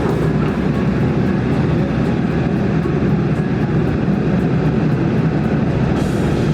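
Kobelco SK200 excavator's diesel engine running steadily.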